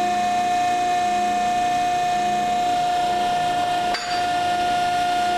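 Hydraulic exhaust-tube bender's electric pump motor running with a steady whine, and a single sharp metallic click about four seconds in.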